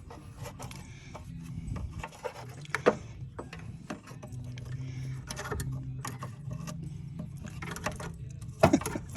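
Brake master cylinder and tools being handled during fitting: scattered clicks, knocks and rubbing of metal parts, with a louder knock about three seconds in and a cluster near the end, over a steady low hum.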